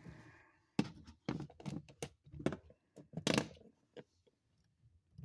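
A quick run of clicks, knocks and a short scrape as a wall receptacle and its copper wires are handled, with the busiest clicking between about one and three and a half seconds in.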